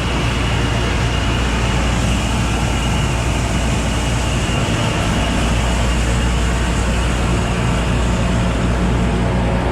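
Combine harvester running steadily, engine and threshing machinery making an even, loud drone.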